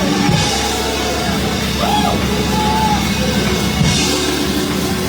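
Live church band music with a drum kit, played loud and steady.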